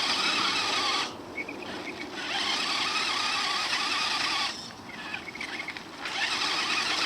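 Radio-controlled model's electric motor whining with a hiss, in three throttle bursts: cutting out about a second in, back on for about two seconds, then again near the end.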